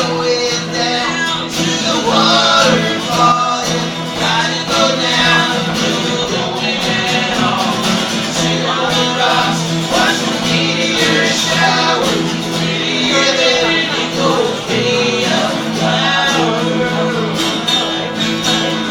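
A live band playing a country-folk song: strummed acoustic guitar chords held steady underneath a bending lead melody line.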